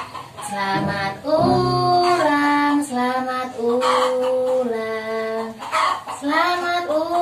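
A woman's voice singing a slow birthday song in long held notes, stepping from one pitch to the next with short slides.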